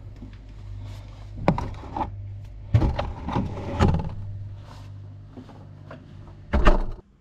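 Eggs being taken from a clear plastic egg tray in a refrigerator: scattered clicks and knocks of plastic, with a low hum underneath for the first few seconds. The loudest knock comes near the end.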